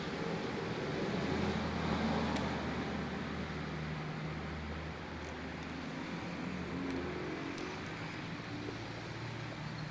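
Distant road traffic: a steady low engine rumble that swells about two seconds in.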